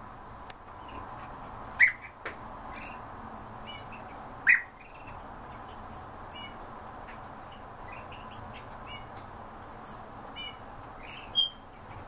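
European bee-eaters calling: three loud, short calls, about two seconds in, halfway through and near the end, with many fainter short chirps in between.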